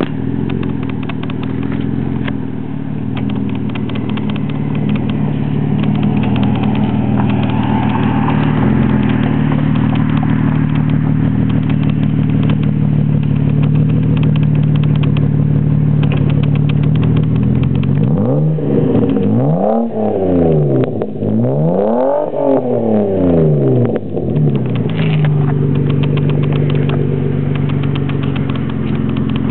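Dodge Stratus R/T coupe's V6 exhaust idling steadily, then revved twice about two-thirds of the way in, the pitch rising and falling each time before settling back to idle.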